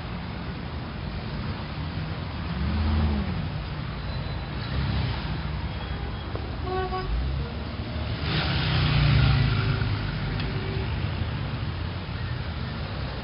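1920s-style city street ambience: motor cars running past over a steady low traffic rumble. One vehicle passes early on and a louder one about two-thirds through, with a short pitched note, like a horn, just before it. The sound is dull, with no high treble.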